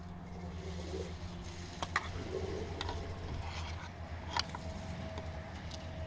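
Spoons clinking and scraping on plates and a pan during a meal: scattered sharp clinks, the loudest about two seconds in and again about four and a half seconds in, over a steady low hum.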